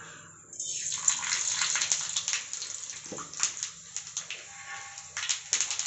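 Mustard seeds and urad dal sizzling and popping in hot oil in an iron kadai. This is the tempering for a chutney, and it starts about half a second in, with a run of louder crackles near the end.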